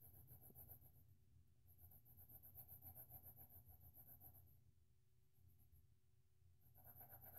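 Faint scratching of an Artist Loft colored pencil shading on paper in quick back-and-forth strokes. The strokes come in three spells with short pauses between them.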